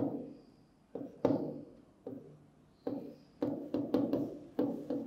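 Pen tip knocking against a writing board as a word is written by hand: a few sharp taps spaced apart at first, then a quicker run of two or three a second from about three seconds in.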